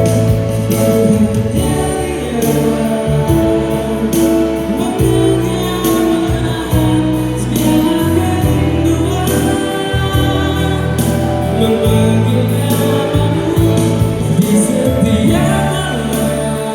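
A solo singer performing a pop ballad over a backing track with bass and a steady drum beat.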